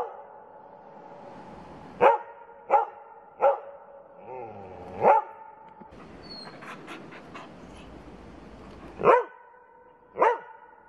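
A husky-type dog barking, about six short, sharp barks, one led in by a brief rising whine. After the fourth bark comes a gap of about four seconds holding only a few faint clicks, then two more barks near the end.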